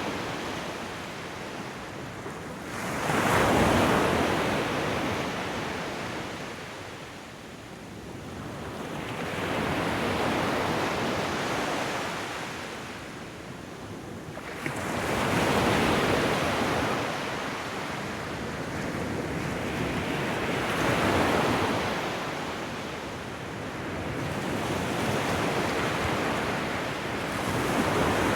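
Ocean surf: waves rise and break in five slow swells, about one every six seconds, with a softer wash of water between them.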